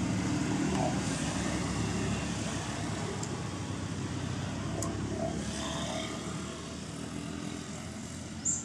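A steady, low engine-like drone that slowly fades. A few faint short high sounds come over it, and there is a sharp click near the end.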